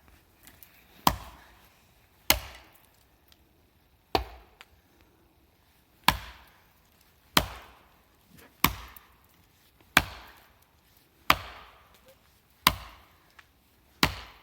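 An axe chopping wood: about ten sharp strikes, roughly one every second and a quarter, each ringing out briefly.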